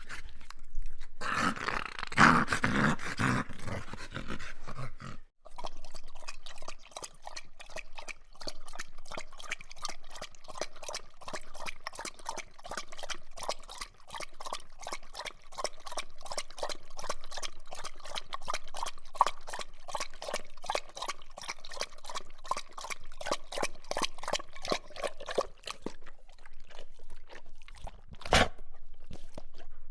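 A dog making sounds: a loud stretch in the first few seconds, then a long run of quick, evenly repeating sounds, with one louder sound near the end.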